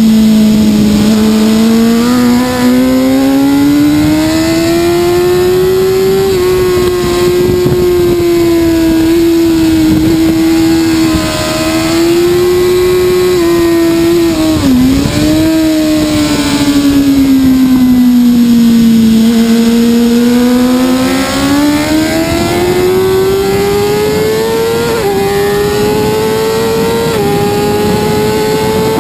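BMW S1000RR's inline-four engine at racing speed, heard from on board: its pitch rises and falls as the rider works the throttle, with a sharp brief dip about halfway through, then climbs steadily over the last third under hard acceleration.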